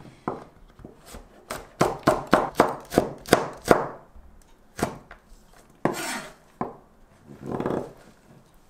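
Chef's knife slicing chili peppers thinly on a plastic cutting board: a quick run of chopping strokes, about four a second, then a few single cuts and a short scraping sound near the end.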